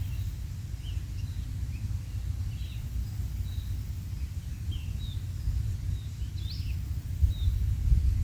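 Short, high bird chirps repeated a dozen or so times, some rising or falling, with a cluster about six and a half seconds in, over a steady low rumble.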